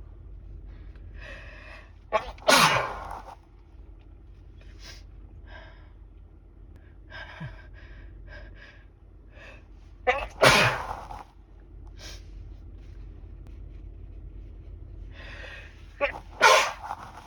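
A person sneezing three times, several seconds apart. Each sneeze comes in two quick bursts and is preceded by a fainter breathy in-breath.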